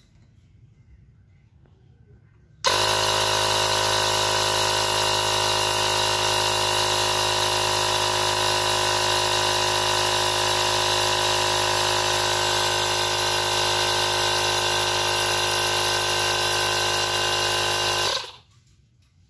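Ingco CACLI2001 20 V cordless tyre inflator running steadily at one pitch while pumping up a motorcycle tyre. It starts abruptly about two and a half seconds in and cuts off abruptly near the end.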